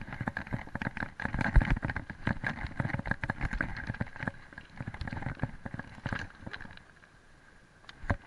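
Mountain bike clattering and its tyres crunching over loose river stones and gravel: a dense stream of knocks and rattles that eases off about seven seconds in.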